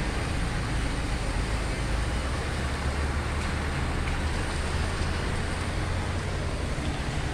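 Steady street traffic on a wet road: an even noise with a low rumble underneath.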